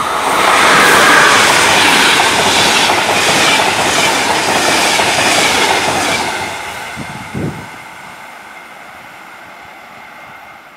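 Passenger train hauled by an electric locomotive passing close by at speed: a loud rush of wheels on rails with a regular clatter over the rail joints, fading away after about six seconds. A brief thump comes shortly after the train has gone by.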